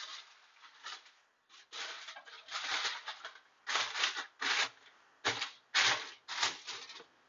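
Aluminium foil crinkling and rustling in irregular short bursts as it is pressed and smoothed into the well beneath an electric coil stove's top.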